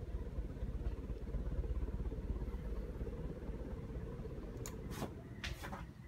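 Hunter Quiet Breeze ceiling fan running at high speed, the only speed that works on it, with a steady low whoosh from the blades and a motor hum. A few sharp clicks come near the end.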